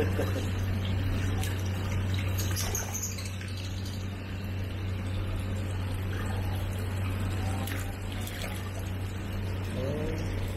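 Water running steadily over a constant low hum, as at a koi pond with water flowing in.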